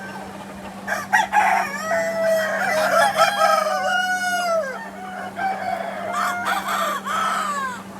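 Village roosters crowing: several overlapping crows start about a second in, each a long held call that falls away at its end, and a second round comes near the end.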